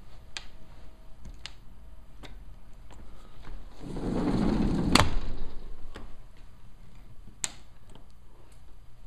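A sliding glass patio door rolled open along its track: about a second of rolling rumble ending in a sharp clunk. A few light clicks come before and after.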